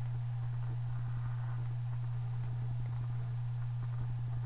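A steady low hum with faint, irregular clicks of a computer mouse over it.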